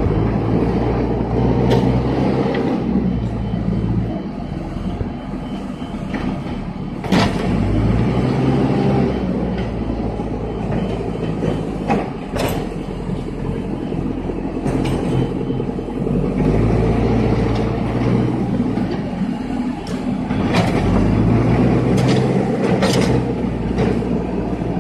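Diesel engine of a tracked pile-drilling rig running under load, its note rising and holding for a few seconds at a time, several times, as the rig works. Sharp metal clanks break in now and then.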